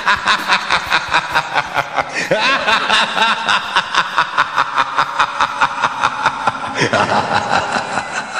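Rapid, evenly pulsed chuckling laughter, about five pulses a second, running on for several seconds with sliding pitch.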